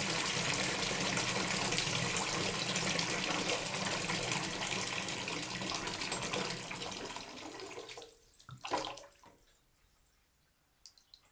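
Water running from a tap into a filling bathtub, a steady rush that dies away about seven to eight seconds in as the flow is shut off. A couple of brief splashes follow, then a few faint drips.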